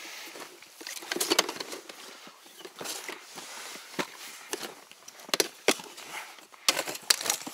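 Handling noise: a plastic case and cardboard boxes of shotgun shells being moved, opened and set down, with rustling and scattered sharp clicks and knocks, a cluster about a second in and several more near the end.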